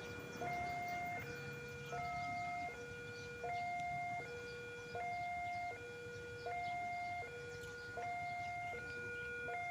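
Railway level-crossing warning alarm sounding a steady two-tone hi-lo pattern, the pitch switching between a lower and a higher note about every three-quarters of a second.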